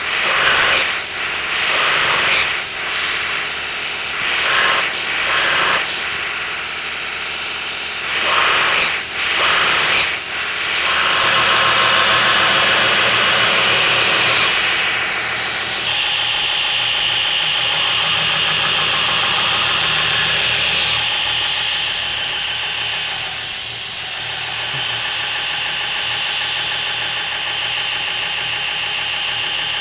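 Belt grinder running while the bevel of a coil-spring steel knife blade is ground on the abrasive belt, a steady grinding hiss. For about the first ten seconds it rises and falls every second or two with short passes of the blade, then holds steadier with longer contact, easing briefly near the end.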